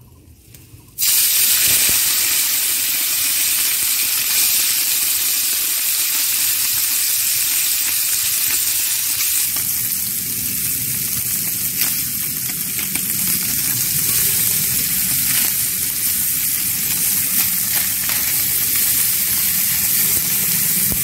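Small mourala (mola carplet) fish going into hot oil in a wok: a loud sizzle starts suddenly about a second in and runs on steadily as they deep-fry toward crisp.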